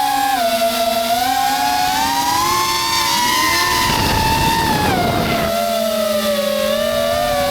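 3.5-inch FPV quadcopter's brushless motors and propellers whining, heard from its onboard camera, the pitch rising and falling with the throttle. About three seconds in, a rushing noise joins the whine. Near the middle the pitch drops and stays low, then starts to climb again near the end.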